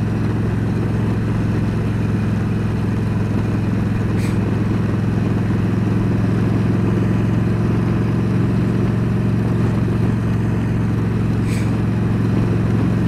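Yamaha V Star 1300's V-twin engine running at a steady cruising speed, a constant low drone with no change in revs, heard from on the moving motorcycle.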